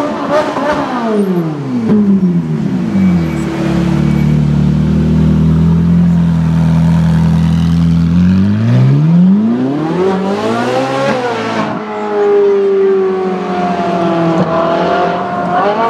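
Ferrari 458 Italia's V8 exhaust: the revs fall away and it runs low and steady for several seconds. Then it revs up hard about nine seconds in, drops suddenly, and pulls on at moderate revs, rising again near the end.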